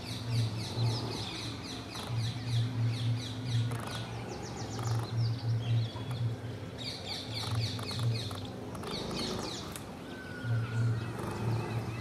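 A flock of yellow-throated sparrows chirping: rapid trains of quick, high chirps that come in spells with short lulls. A low pulsing hum runs underneath.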